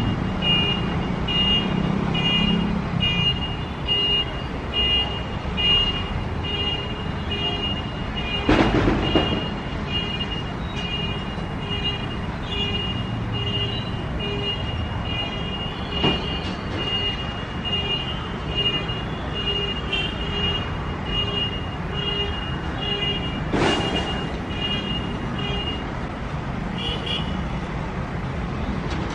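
Low, steady rumble of a WAP-7 electric locomotive and its passenger coaches rolling slowly into a station. Over it a high two-note beep repeats about twice a second, stopping near the end, and there are two brief noisy swooshes.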